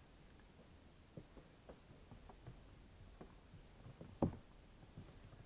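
Faint clicks and taps of a plastic car interior door handle assembly being handled, with one sharper knock about four seconds in.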